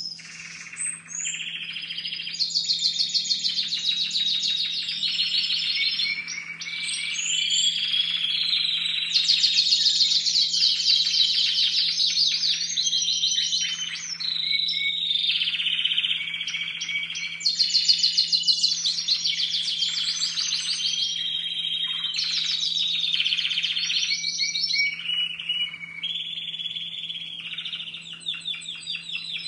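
Several young Timbrado Español canaries singing almost without pause, phrase after phrase of fast rolling trills that shift in pitch from one phrase to the next. These are juvenile males in contest-cage training, whose repertoire is not yet fully formed.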